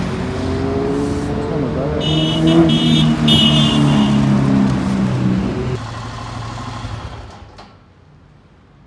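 Road traffic: motor vehicle engines passing, rising and falling in pitch, with three short high-pitched tones about two seconds in. The sound fades away over the last few seconds.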